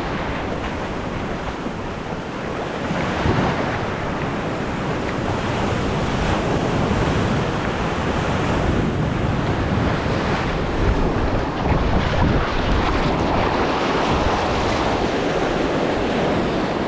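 Ocean surf breaking and washing up a sandy beach, a steady rushing wash that swells and eases, with wind buffeting the microphone.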